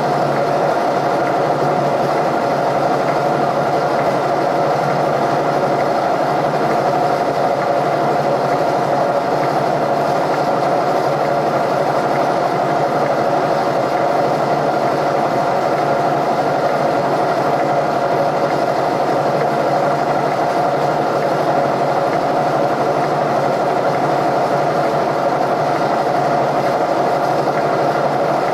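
Mill running steadily, turning a long boring bar with a single-point tool that re-bores worn, egg-shaped holes in steel suspension frames; an even, unbroken machine hum.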